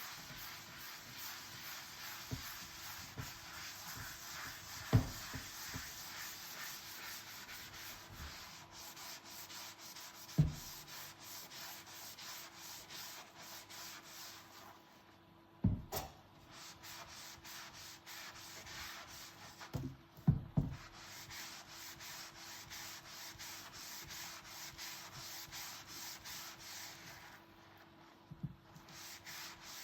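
Dishes being scrubbed by hand: a fast, steady rubbing that pauses briefly twice, with a few sharp clinks and knocks of tableware being handled, the loudest of them about 5, 10 and 16 seconds in and a quick pair about 20 seconds in.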